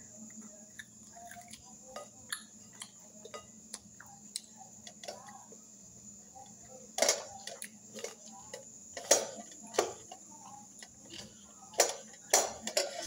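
Eating sounds: a metal fork clicking and scraping against a glass bowl, with soft chewing between. The clinks are sparse, with several louder ones in the second half.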